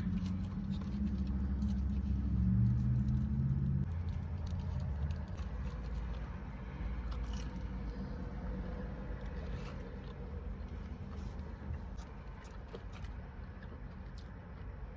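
Chewing and crunching on a crispy fried egg roll, with scattered small crackles and mouth sounds. A low rumble underlies the first four seconds, then fades.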